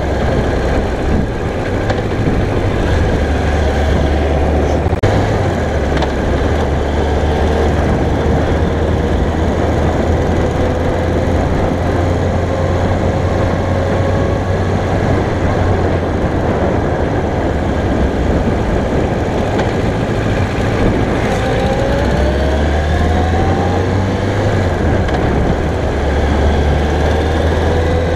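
A 2001 Yamaha YZF-R1's 998 cc inline-four engine running while ridden, heard against a heavy wind rumble on the microphone. The engine note climbs slowly several times as the bike accelerates, once over several seconds in the first half and more quickly twice in the second half.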